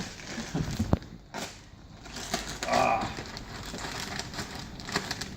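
Packaging crinkling and rustling as a boxed foam LARP sword is unpacked and handled, with a sharp knock about a second in.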